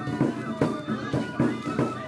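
Shishimai festival music: a Japanese bamboo flute playing a wavering melody over steady, quick taiko drum beats, about three to four strikes a second.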